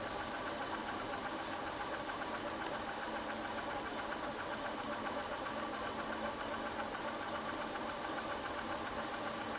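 Motorcycle engine running steadily while the bike is ridden at an even speed.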